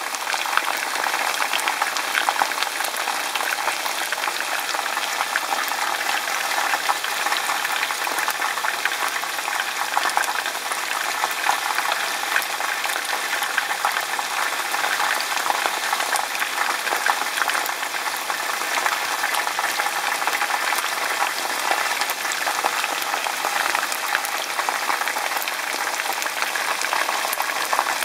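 Chicken pieces frying in a skillet of hot oil: a steady sizzle of bubbling oil, thick with fine crackles.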